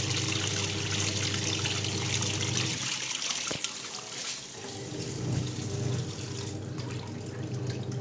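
Sansui twin-tub washing machine's wash tub running, its motor humming steadily while the curtains churn in the soapy water. The motor stops about three seconds in and starts again about a second and a half later, as the wash cycle changes direction.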